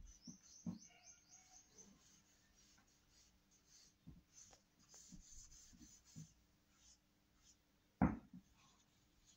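Felt-tip marker scratching in quick short strokes on sketchbook paper as a child colours in, faint, with a few soft knocks on the table and a louder thump about eight seconds in.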